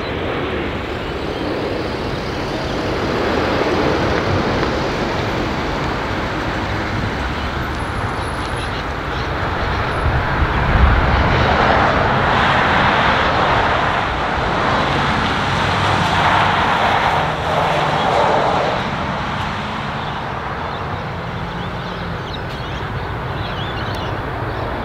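Jet engines of a landing Boeing 787-9, a steady rushing noise that swells as the airliner touches down and again a few seconds later during the rollout, then eases off.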